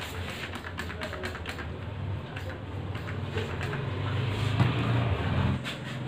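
Hand spray bottle squeezed in quick succession, a run of short clicking squirts, over a low motor hum that grows louder about four seconds in.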